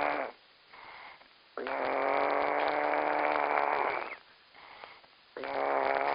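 A man snoring loudly: long snores with a steady pitch, each about two and a half seconds, separated by short, much quieter breaths. One snore ends just after the start, a full one fills the middle, and another begins near the end.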